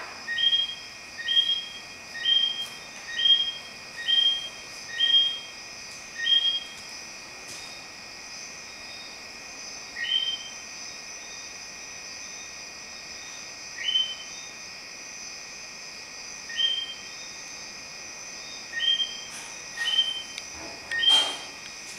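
Night animal calls: a short two-note call, a lower note then a higher, rising one, repeated about once a second, then only every few seconds, over a steady high insect shrill.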